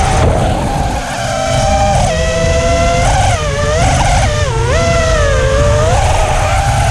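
Emax 2306 2400kv brushless motors on an FPV quadcopter whining, the pitch dipping and rising several times with throttle, over a rough low rumble. The owner reports a weird noise and vibration from these motors, which are also running hot.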